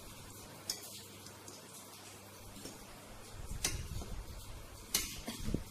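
Quiet table noises of people eating: three light, sharp clicks, about a second in, near four seconds and near five seconds, the last two with soft low thuds alongside.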